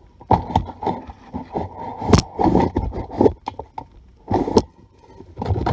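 Handling noise from a camera being picked up and repositioned: irregular rubbing, scraping and knocks in three bursts, the sharpest click about two seconds in.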